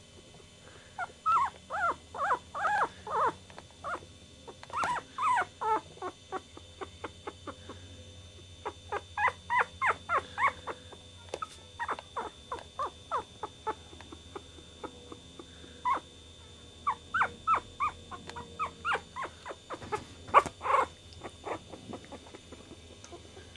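Very young puppies crying, with short high-pitched squeaks and whimpers in quick runs of several a second and pauses between the runs. The loudest cries come about twenty seconds in.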